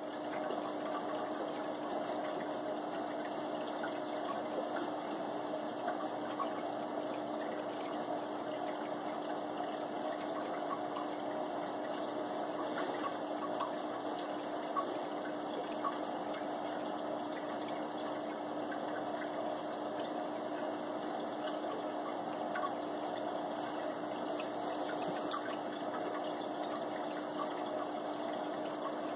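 Aquarium filter running: a steady trickle and splash of water with a constant low pump hum and small scattered drips.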